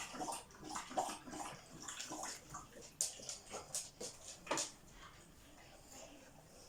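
Dogs chewing and mouthing treats: a run of small, irregular clicks and smacks that dies away about two-thirds of the way through.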